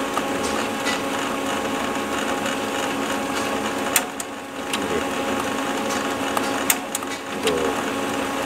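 HP LaserJet 1320 laser printer running its drive motor on a test-page cycle: a steady mechanical whir of motor and gears, with a few sharp clicks from the paper pickup mechanism about 4 s in and near 7 s. The pickup roller turns freely, no longer stuck.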